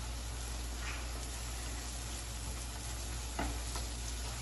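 Onions and green chillies sizzling steadily in hot oil in a non-stick frying pan, with a spatula stirring through them and a few light scrapes and taps against the pan.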